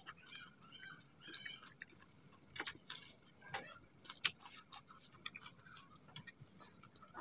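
Quiet close-up chewing and mouth sounds of a person eating mie ayam noodles, with a few sharp clicks about halfway through.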